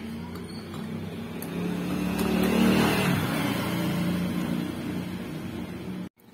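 A passing motor vehicle's engine, swelling to its loudest about two and a half seconds in and then fading. The sound cuts off abruptly near the end.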